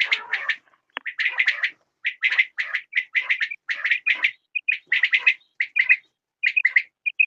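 Quail calling: quick repeated phrases of two to four sharp notes, with soft single notes between the phrases.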